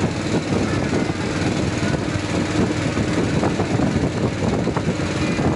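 Motor of a small passenger boat running steadily while under way, a continuous low drone with a steady hum.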